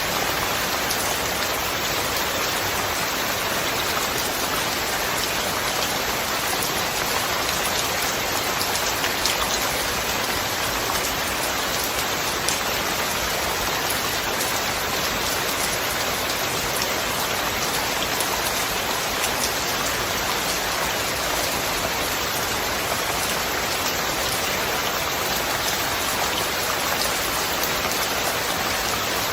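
Steady rain falling, an even hiss of many drops with fine scattered drop taps and no thunder.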